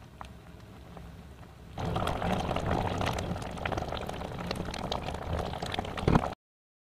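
Strawberry jam boiling in a stainless steel pot, bubbling and popping, as it is stirred with a wooden spoon. Fainter at first, much louder from about two seconds in, with a sharp knock just before it cuts off suddenly near the end.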